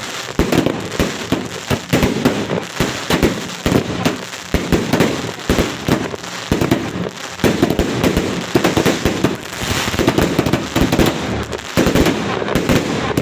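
Fireworks and firecrackers going off in a rapid, unbroken run of bangs and crackles, many a second.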